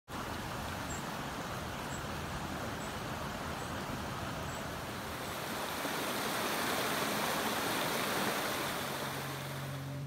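Small woodland stream running over rocks: a steady rush of water that swells a little past the middle. A faint high chirp repeats about once a second in the first half.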